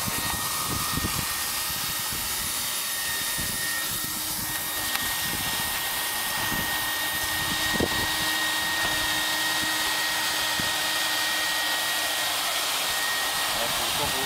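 Leister Varimat automatic hot-air roof welder running, its blower giving a steady rush of hot air with a constant high whine while it welds a PVC/TPO membrane seam.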